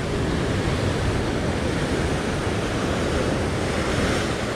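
Sea surf washing and breaking over coastal rocks in a steady rush, with wind buffeting the microphone.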